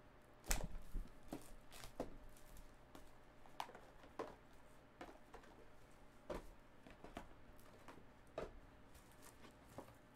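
Cardboard boxes of trading cards being handled and unpacked from a cardboard master box: irregular knocks, taps and rustles, the loudest knock about half a second in.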